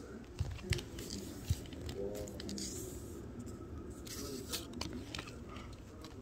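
Handling noise close to the microphone: a few sharp knocks in the first second and a half, then light scraping and rustling as a paper cutout is moved about.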